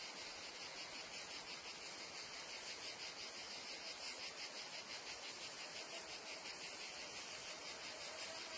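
Meadow insect chorus of crickets and cicadas, a steady, dense high-pitched chirring made of very rapid, even pulses.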